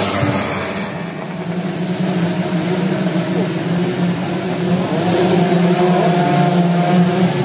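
Racing underbone motorcycle engines running loud at speed, their pitch rising and falling as they rev.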